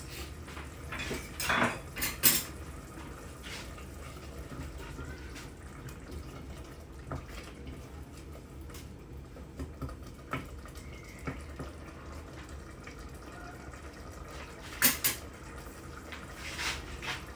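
Kitchen utensils clinking and knocking against dishes and a pot: a cluster of sharp clinks in the first couple of seconds, lighter scattered ticks, and another pair of clinks about fifteen seconds in.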